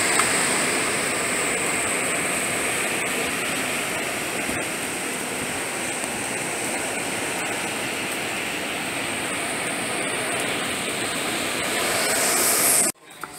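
Hurricane-force wind and rain, a steady rushing noise with a thin, steady high whine above it, that cuts off suddenly near the end.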